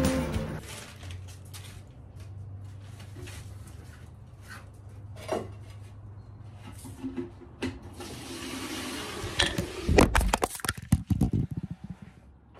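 Water running from a tank tap into a container for a couple of seconds, followed by several loud knocks and clatter as containers are handled.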